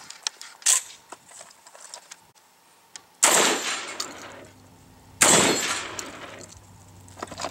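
Two shots from an FN SLP Mach 1 12-gauge semi-automatic shotgun, about two seconds apart, each trailing off in a long echo.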